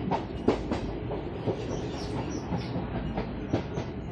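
Passenger train running, a steady rumble of the coach with its wheels clacking irregularly over the rail joints.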